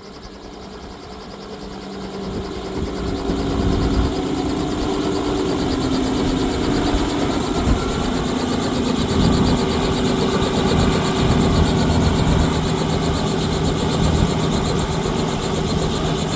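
Helicopter engine and rotor running on the helipad. The sound grows louder over the first few seconds, then holds as a steady drone with a rapid fine pulsing.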